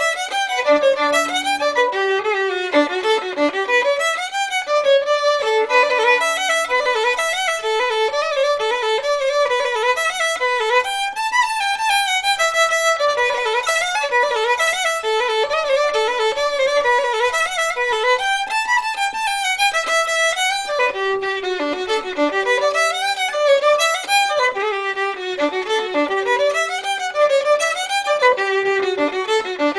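Unaccompanied fiddle playing an Irish traditional dance tune: quick runs of bowed notes, broken now and then by a few longer held low notes.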